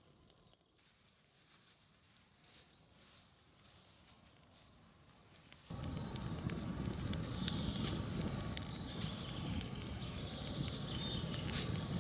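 Faint rustling at first, then from about six seconds in a louder stretch of crinkling and crackling with many sharp clicks as a plastic bag is handled beside a small wood-burning stove. Birds chirp briefly in the background.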